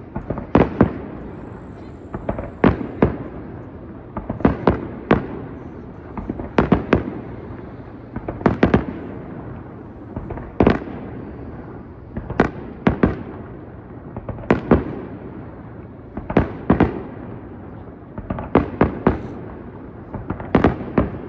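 Aerial fireworks shells bursting in a steady sequence: sharp bangs in groups of two or three about every two seconds, with a rumbling echo between the groups.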